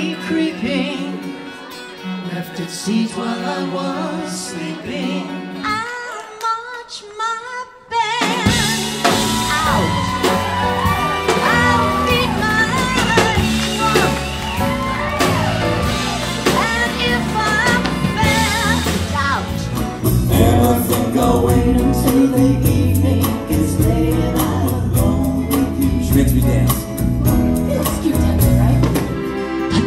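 Live band of piano, electric guitar, bass and drums accompanying singing. A slower sung passage thins out around six seconds in. It cuts abruptly at about eight seconds to the full band under a woman's lead vocal, and the music changes again about twenty seconds in.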